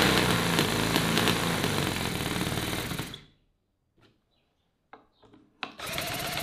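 CISON FG-VT9 9cc V-twin four-stroke model engine running fast. About three seconds in the sound drops away to near silence with a few faint clicks, and near the end the engine is running again, more quietly and steadily.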